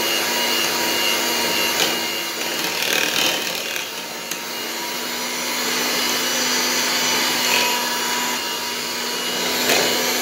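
Electric hand mixer running steadily at one constant pitch, its beaters whisking thick cake batter in a stainless steel bowl, with a few brief clicks.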